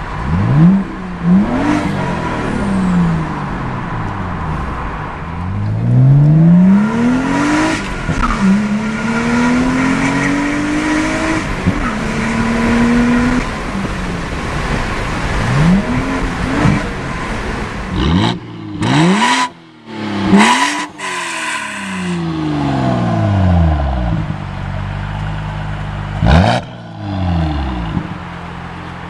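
A 2011 BMW 135i's turbocharged straight-six with a rear muffler delete gives a deep exhaust note, heard from inside the cabin. It pulls up through the revs again and again, dropping in pitch at each gear change, with a few abrupt cuts between clips. Near the end a short rev settles to a steady idle at the tailpipe.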